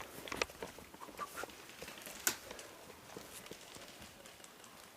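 Footsteps and gear clatter of a player moving on foot, with scattered short clicks and knocks, the sharpest about two seconds in.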